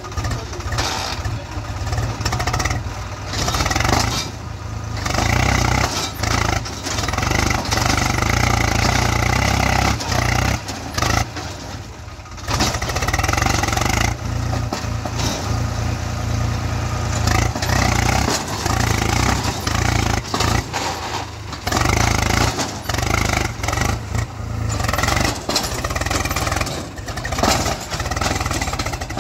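A Swaraj 735 XT tractor's three-cylinder diesel engine running under heavy load, its level rising and falling repeatedly as it revs to pull a loaded trailer out of deep sand: the tractor is bogged down.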